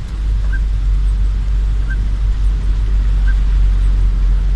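Car driving through a flooded street in rain, heard from inside the cabin: a steady low engine and road rumble under a hiss of rain and water. A short high chirp comes about every second and a half.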